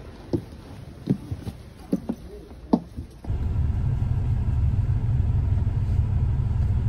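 A few short thuds of footsteps climbing a highway bus's entrance steps and walking down the aisle. After about three seconds they give way to a steady low rumble of the bus's engine idling, heard inside the cabin.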